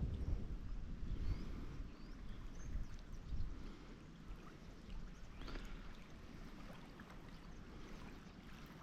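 Faint outdoor waterside ambience: a low rumble that fades over the first couple of seconds, gentle water noise, and a few faint short high chirps.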